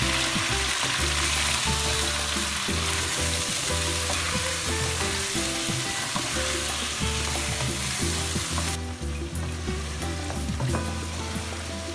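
Chicken pieces sizzling in hot oil in a nonstick wok, stirred and turned with a wooden spatula that knocks and scrapes against the pan. The sizzle softens about nine seconds in.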